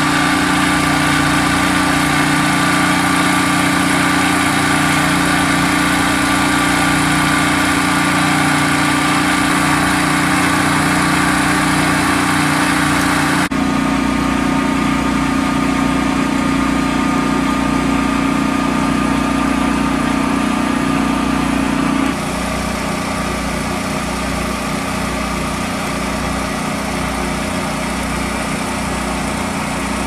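An engine idling steadily with an even hum. Its tone shifts abruptly twice, about halfway through and again near two-thirds, and a slow low throb shows in the last part.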